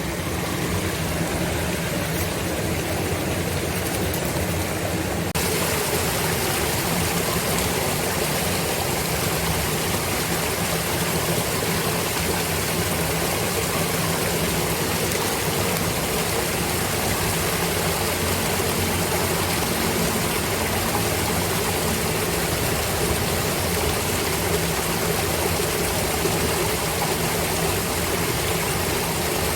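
Steady rushing of flowing water, as from a stream or weir, with a faint low hum beneath it. The rushing grows brighter and fuller about five seconds in, then holds steady.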